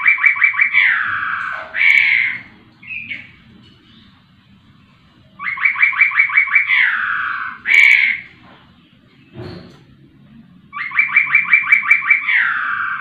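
A caged poksay rowo songbird sings the same loud phrase three times, about five seconds apart. Each phrase is a fast run of about ten clipped notes, then a falling slurred note and a short closing note. A single soft knock comes between the second and third phrases.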